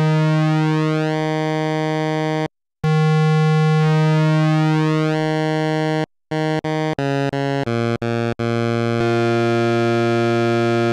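Behringer 2600 Blue Marvin analog synthesizer playing a held square-wave note from oscillator one, its pulse width being turned off exactly 50% so the tone slowly shifts. The note stops twice, then a run of short notes steps down in pitch into a lower held note.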